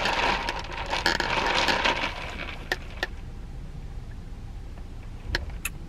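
Ice rattling and clinking in a plastic cup as an iced matcha latte is stirred with a straw, fading out after about two seconds. A few faint clicks follow.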